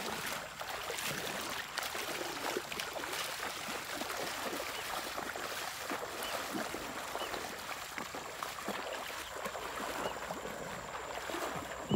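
Repeated splashing of feet wading through shallow river water, over a steady wash of moving water.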